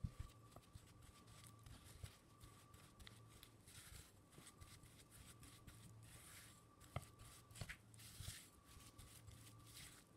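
Faint, irregular scraping and squishing of a silicone spatula creaming butter, oil and powdered sugar in a glass bowl, with a few light knocks of the spatula against the bowl.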